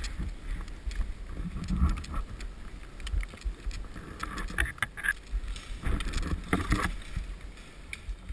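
Footsteps crunching in snow and bare twigs scraping against clothing and gear, in irregular rustling bursts, over a low rumble of wind on the microphone.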